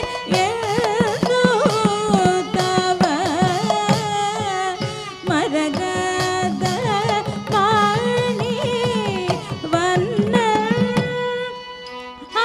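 Live Carnatic music for Mohiniyattam: a woman sings an ornamented Malayalam melody over a steady drone, accompanied by hand-drum strokes from an edakka. Near the end it drops to a softer, sustained note.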